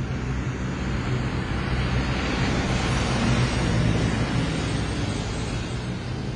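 Steady rushing noise like wind or surf over a low hum, swelling a little in the middle.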